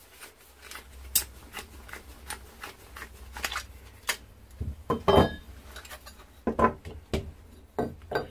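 Pipe-slice cutter being turned around a copper pipe, making irregular metallic clicks and scrapes. From about halfway on come louder knocks as the cut copper pieces are handled and set on a wooden bench.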